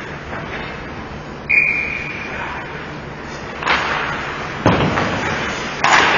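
Ice rink ambience during a hockey game: one short blast of a referee's whistle about a second and a half in, then three loud bangs in the second half, like pucks or bodies hitting the boards.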